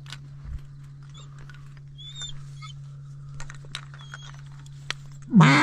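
Faint rustling and small clicks over a steady low hum, then a loud duck quack just before the end.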